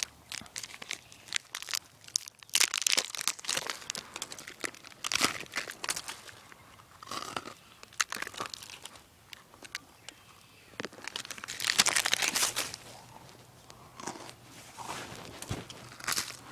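Dry leaves crunching and rustling irregularly as someone moves through or in them, with louder crackling stretches about a third of the way in and again past the middle.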